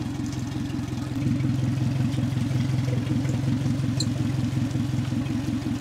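Suzuki 175 four-stroke outboard running at idle out of the water, with a steady fast pulse. It gets a little louder about a second in, and a light click comes about four seconds in.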